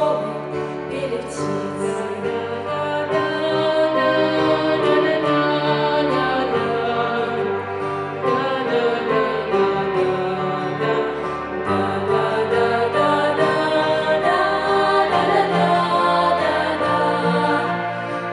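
Music: a vocal trio singing in harmony, with long held notes.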